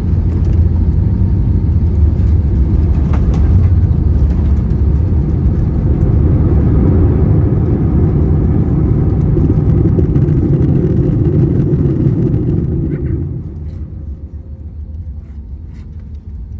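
Cabin noise of an Airbus A321neo, with Pratt & Whitney PW1100G geared turbofans, during its landing rollout with spoilers deployed: a loud, deep rumble of the engines and the wheels on the runway. It eases off about 13 seconds in as the aircraft slows.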